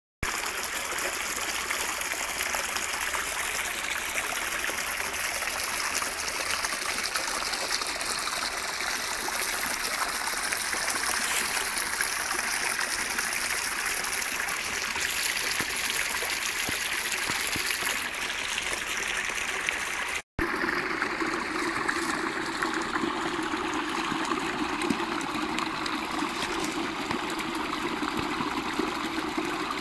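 A small shallow brook running over stones and leaf litter, a steady rush of flowing water. After a momentary dropout about two-thirds of the way in, the sound turns fuller and lower as water pours over a small rocky ledge.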